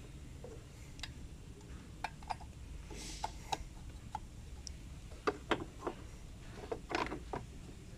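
Light, irregular plastic clicks and taps as a headlight projector module is handled and worked into its plastic housing, coming more often in the second half.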